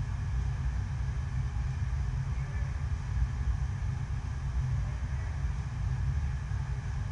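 Steady low rumble and rush of water being pumped up the slope of an artificial sheet-wave surf machine.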